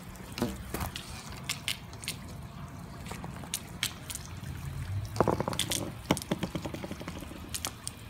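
Water dripping and trickling, heard as many short, irregular ticks over a low steady wash, with a louder cluster about five seconds in.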